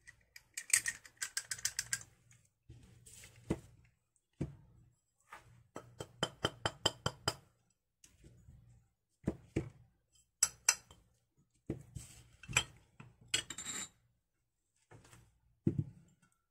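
Metal spoon clinking and scraping against a stainless-steel mixing bowl and small ceramic dishes, in several quick runs of taps with single knocks between, as seasoning is spooned onto raw chicken wings.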